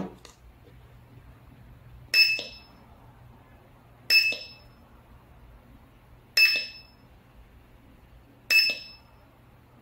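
Siren alarm unit giving a short, high beep each time its manual switch is pressed, four times about two seconds apart, each beep followed by a faint click. The beeps mark the switch cycling the siren through its modes.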